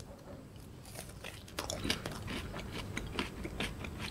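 Close-up crunching and chewing of a KitKat Gold ice cream bar, its crunchy wafer-bit coating crackling, starting about a second in.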